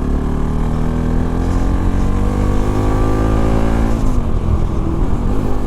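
Modified Bajaj Pulsar NS200's single-cylinder engine accelerating hard under way, its pitch climbing steadily for about four seconds, then falling away abruptly.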